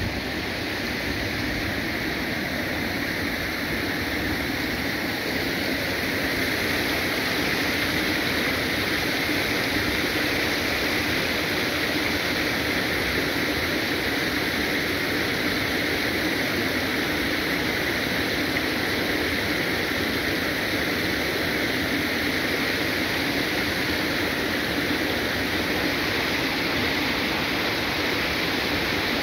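Steady rush of water flowing through a concrete trout-farm raceway, a little louder about six seconds in.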